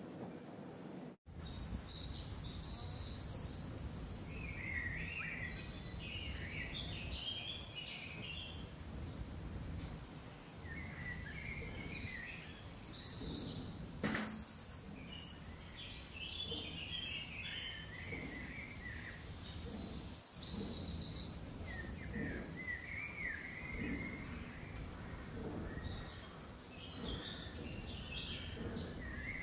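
Small birds chirping on and off over a steady low background rumble, with one sharp click about fourteen seconds in.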